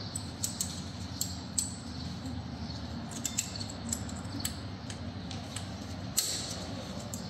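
Light metallic clicks and clinks of brake parts being handled at a front brake caliper carrier fitted with pad clips, a scattered string of short, sharp ticks with the loudest a little after six seconds in. A steady low hum runs underneath.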